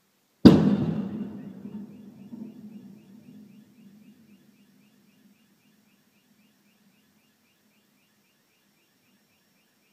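A single loud blast from a car on fire, about half a second in, dying away over three to four seconds in a low rumbling echo.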